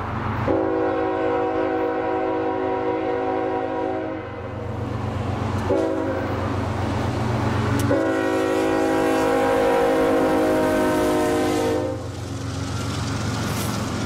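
CSX diesel freight locomotive's multi-chime air horn sounding a long blast, a short blast and another long blast, the long-short-long ending of the grade-crossing signal, over the low rumble of the approaching GE diesel. Near the end the horn stops and the autorack cars roll past with steady wheel noise.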